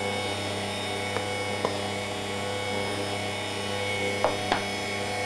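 Bosch stand mixer running steadily, its wire whisk beating batter, with a few sharp clicks of a spoon against the bowls as flour is spooned in.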